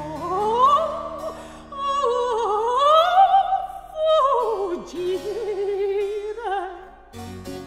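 Mezzo-soprano singing a 17th-century Italian aria in opera style, with wide vibrato and quick runs that climb and fall, over sustained low accompanying notes. The voice stops about a second before the end.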